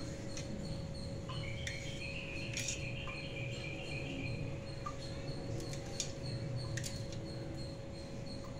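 Faint, sparse clicks of a knife blade against a steel plate as soft idlis are sliced, over a steady low hum. A thin, high, wavering chirp runs for about three seconds, starting about a second in.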